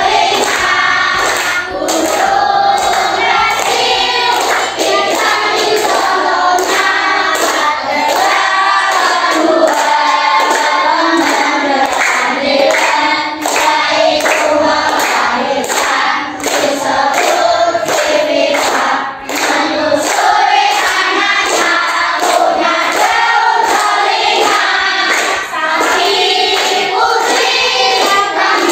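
A group of schoolchildren singing a song together without a break.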